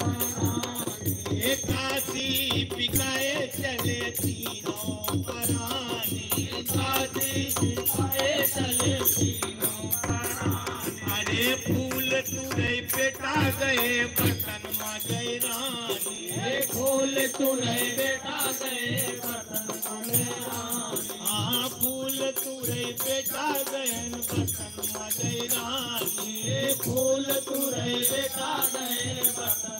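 Devotional folk music: dholak drums keep a steady rhythm under a melody, with crisp percussion strokes throughout.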